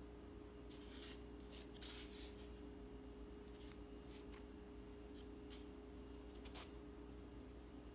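Near silence: a steady faint low hum, with a handful of brief, soft rustles and scrapes of handling scattered through the first seven seconds.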